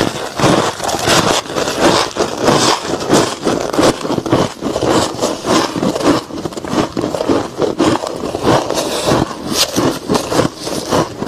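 Freezer frost being chewed: a continuous run of crisp crunches, several a second.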